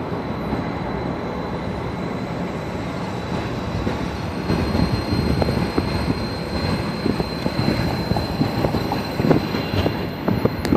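A 2003 Lexus IS300 rolling along with road rumble and a noise from the front passenger wheel: a rapid, irregular clicking and scraping that comes in about four seconds in and grows louder. A thin steady high tone sits over it.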